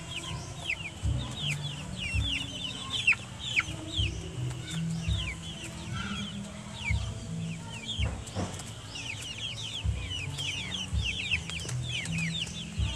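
A flock of caged chickens peeping and chirping constantly, many short high calls falling in pitch, several a second, with occasional low thuds.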